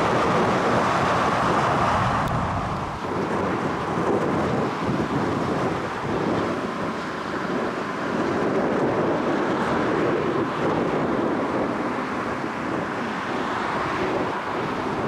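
Heavy wind buffeting the microphone over the rumble of jet aircraft engines, which is stronger in the first few seconds and then eases.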